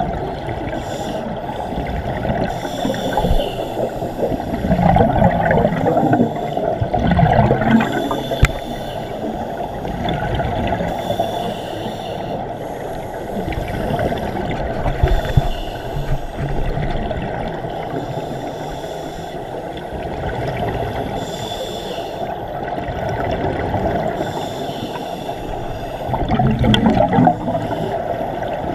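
Muffled underwater bubbling and rushing from scuba divers' regulator exhaust bubbles, heard through an underwater camera housing, with several louder surges of bubbles.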